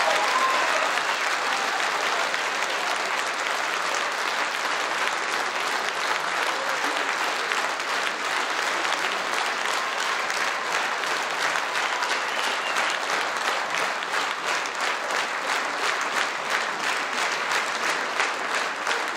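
Large audience applauding in a theatre after the music ends. The clapping stays steady and dense, growing more even and rhythmic in the second half.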